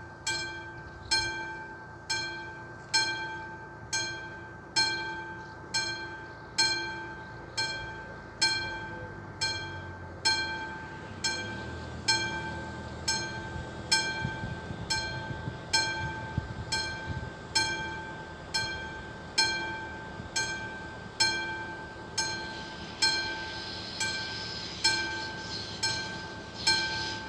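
Level-crossing warning bell at an active crossing, ringing a single ding a little more than once a second, each ding fading out. A low rumble builds around the middle and a rising hiss comes in near the end as a train approaches.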